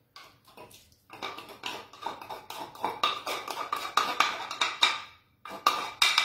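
Metal spoon stirring and scraping sauce inside a wooden mortar: a run of quick clicks and scrapes of metal on wood. After a short break about five seconds in come a few sharper knocks.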